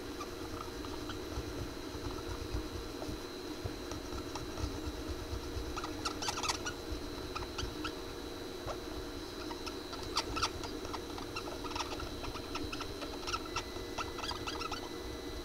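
Scrubbing flux off a circuit board's solder side with isopropyl alcohol: irregular bursts of small scratchy strokes and clicks, coming in clusters, over a steady faint background hum and high whine.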